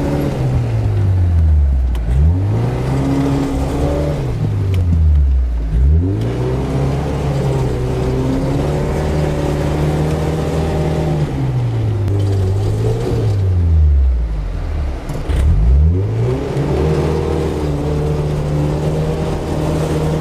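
Suzuki 4x4's engine revving hard and falling back several times as the wheels spin in deep mud, heard from inside the cab. The vehicle is stuck and cannot climb out under its own power.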